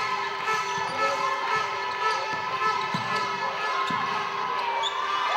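Basketball bouncing on a hardwood court during play, with a few sharp thuds and rubber-soled shoes squeaking on the floor as players move.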